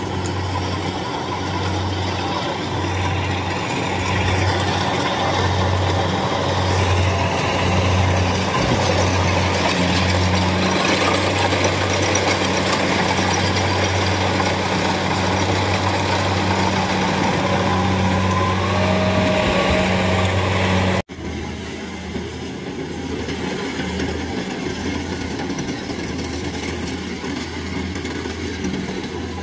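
Kubota 70-series rice combine harvester's engine running steadily at working speed while cutting, a pulsing drone. About two-thirds of the way through it drops suddenly and carries on somewhat quieter.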